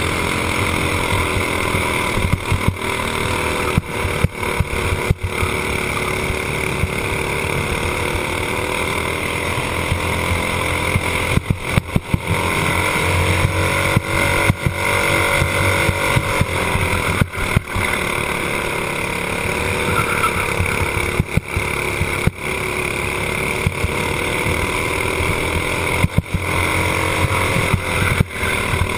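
Racing kart's single-cylinder engine running hard, heard from on board, its pitch rising and falling as the kart speeds up on the straights and slows for the corners, with several brief dips in loudness.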